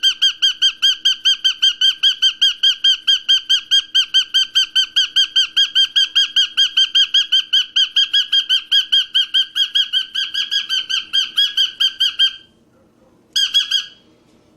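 Cockatiel calling in a fast, even series of identical sharp chirps, about five a second; the series stops near the end, then one more short run follows.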